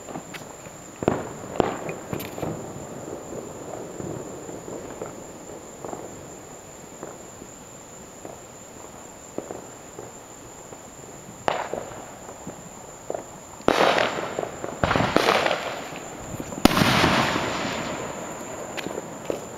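Fireworks going off: a few sharp bangs in the first couple of seconds, then a cluster of louder bangs from about 11 seconds in. The loudest comes near 17 seconds, with a tail that dies away over about two seconds.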